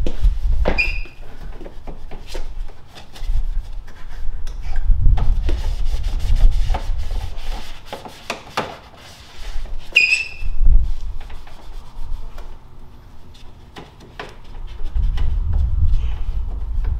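Rag rubbing and scuffing over a car's exposed front bumper reinforcement, wiping off dirt, with scattered light clicks. Two short high squeaks come, one about a second in and one about ten seconds in. A low rumble comes and goes.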